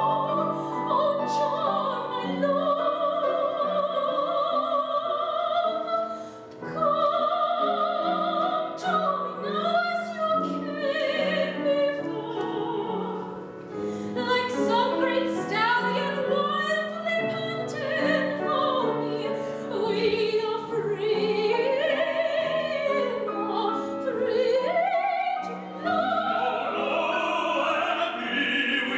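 Operatic singing with piano accompaniment: a high voice sings a sustained line with wide vibrato over steady piano chords.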